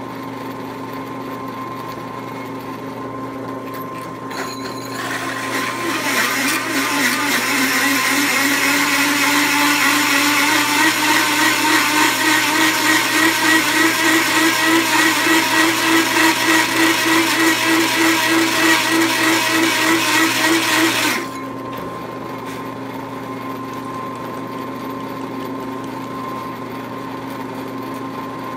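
Drill press motor running steadily while a large hole saw cuts into quarter-inch steel plate: from about five seconds in, a loud grinding cut that pulses about three times a second. The cutting noise stops abruptly about 21 seconds in, and the motor keeps running.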